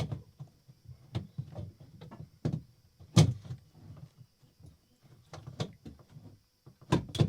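Irregular knocks and rubbing as a plastic boat inspection port is handled and worked in its cut-out in a fiberglass hull. The loudest knocks come about three seconds in and near the end. The port ring sits slightly distorted, out of round, and will not thread properly.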